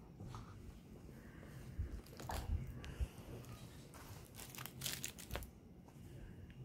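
Rustling and crinkling handling noise, with scattered light clicks and a few soft knocks.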